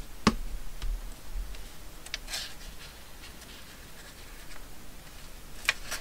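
Handling sounds of paper crafting on a wooden tabletop: a sharp tap just after the start, then a few lighter clicks and a brief paper rustle as a glued paper tab is positioned on a journal page.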